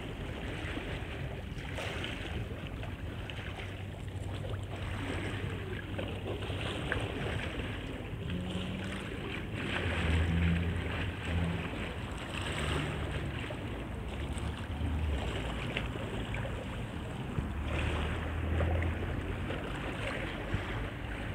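Choppy river water splashing at the bank, with wind on the microphone and a low rumble that comes and goes, loudest about ten seconds in.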